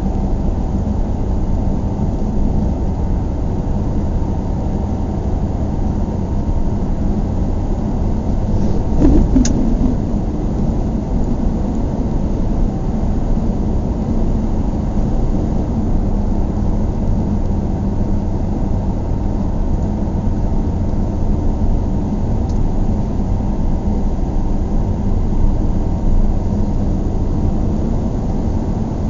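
Car interior while driving: the steady low rumble of engine and tyre noise heard from inside the cabin. A brief knock comes about nine seconds in.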